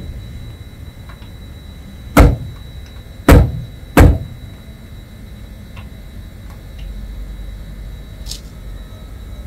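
Three loud, sharp knocks on a hard surface, the first about two seconds in and the other two close together a second later, over a steady low rumble.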